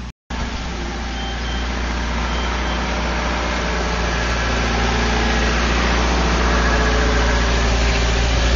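A steady engine rumble, as of a motor idling, growing slowly louder.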